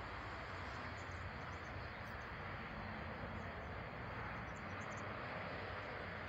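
Quiet outdoor ambience: a steady low background noise with a few faint high chirps scattered through it.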